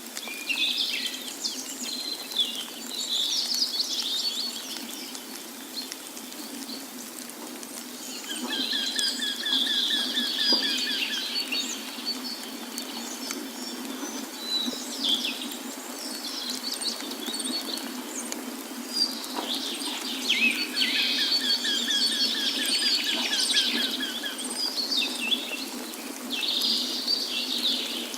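Several songbirds singing and chirping, one of them repeating the same trilled phrase twice, about eleven seconds apart, over the steady rush of falling water.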